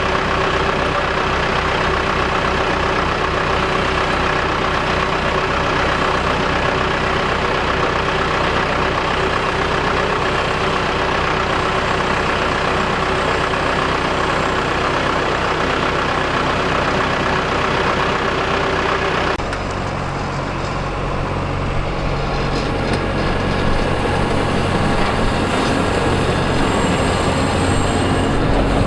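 Combine harvester's engine and machinery running steadily at harvest. About two-thirds of the way through the sound changes abruptly to a deeper, steadier engine tone with less high clatter.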